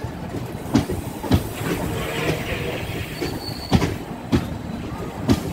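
Passenger train coaches rolling past on the next track, heard from a moving train: a steady rumble of wheels and air with sharp clacks in pairs as bogie wheels cross rail joints, and a short high squeal about three seconds in.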